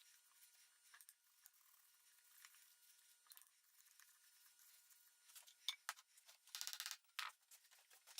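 Faint hiss, then from about five seconds in a few sharp small clicks and a brief dense rattle of about half a second, followed by more clicks near the end.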